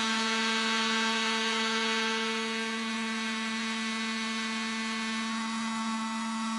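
A steady buzzing drone held on one low pitch, with many overtones.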